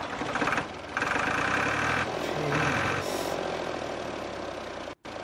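A DIY model tractor running with a chugging, engine-like drone. It has two louder whirring spells of about a second each, then cuts off abruptly near the end.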